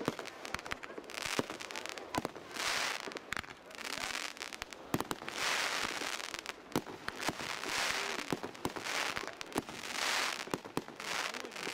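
Fireworks going off: a string of rushing hisses, one every second or two, with sharp cracks and crackling between them.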